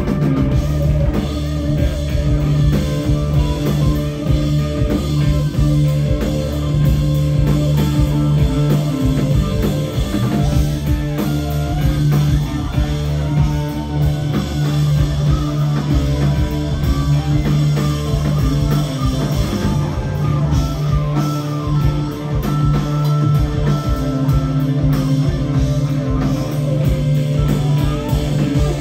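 Rock band playing live: two electric guitars, bass and drum kit in an instrumental stretch with no singing.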